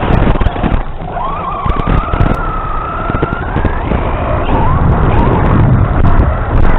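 RC car driving over rough ground: a motor whine that wavers and rises in pitch over a steady rumble, with frequent knocks and rattles from the chassis and wheels.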